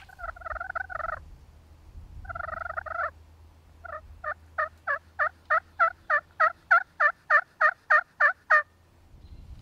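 Turkey calling: two short rattling calls, then a run of about fifteen evenly spaced yelps, about three a second, growing louder.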